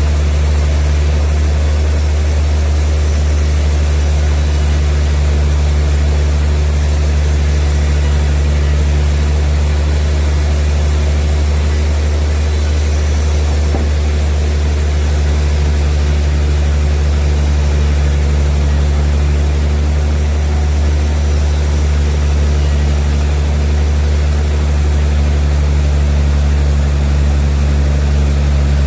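Sawmill machinery running steadily: a loud, low, even engine hum that does not change.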